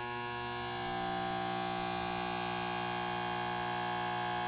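Spot welder humming steadily as it passes current through a seized steel nut, heating it red hot to break it loose.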